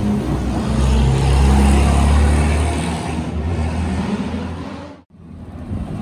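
Vintage car engine accelerating away, loudest between one and two seconds in, then fading. It cuts off abruptly about five seconds in, and another engine follows.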